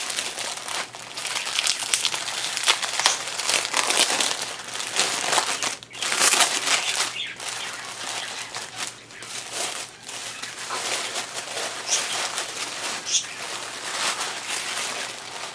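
Gift wrapping being crinkled and pulled open by hand, with a continuous run of crackling rustles throughout.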